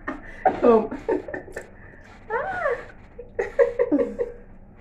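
Two women laughing in several bursts, with short voiced exclamations mixed in.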